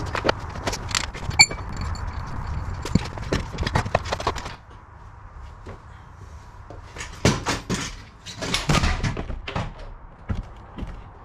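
Irregular metal knocks and clicks of tools and motorcycle parts being handled while the frame is stripped, with one short metallic ring about a second and a half in. A steady background hum stops about halfway through.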